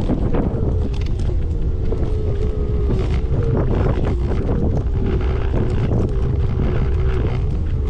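Wind buffeting the microphone while travelling, over a constant low rumble, with a thin steady whine that drifts slightly up and down in pitch.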